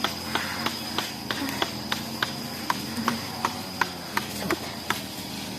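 A steady series of sharp clicks, about three a second, over a faint, steady high whine.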